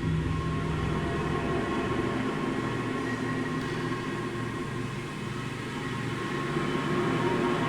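Horror sound-effect drone: a steady metallic rumble with many held tones layered over it, continuing without a break.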